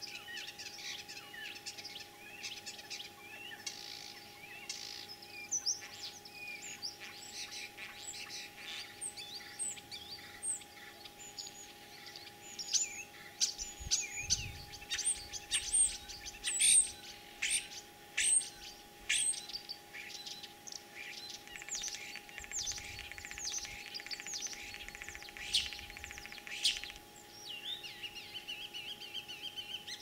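Common starling singing: a long, varied run of whistles, clicks and chattering notes, louder and sharper through the middle.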